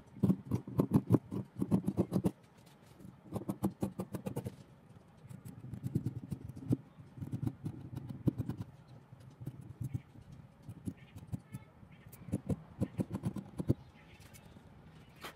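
Fabric scissors cutting through folded eyelet lace, snip after snip in quick runs of short cuts, with brief pauses between the runs as the cloth is repositioned.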